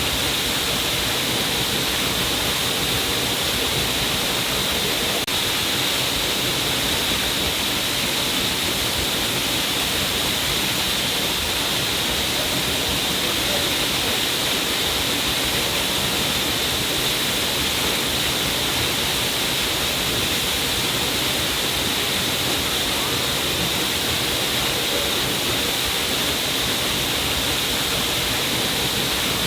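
Stream of water pouring down a cliff face, a steady unbroken splashing rush with a hissy, bright edge.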